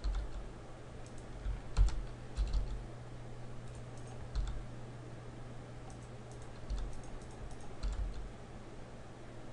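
Computer keyboard keys and mouse buttons clicking in scattered small clusters, including the R key pressed several times in a row, over a steady low hum.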